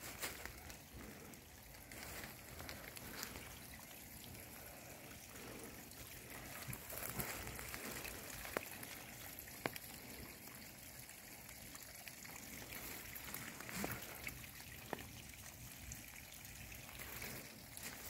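Faint, steady trickle of a mountain stream, with a few sharp clicks scattered through it.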